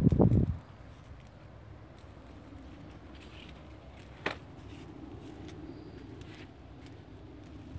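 Faint steady outdoor background noise, with a low rumble against the microphone in the first half-second and a single sharp click about four seconds in.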